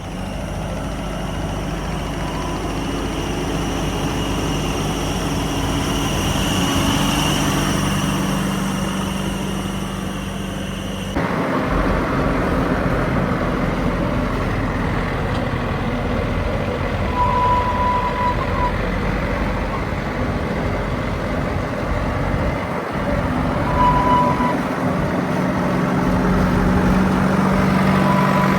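Diesel engine of a tractor or backhoe loader running steadily, its pitch shifting now and then. A few short, high beeps sound in the second half.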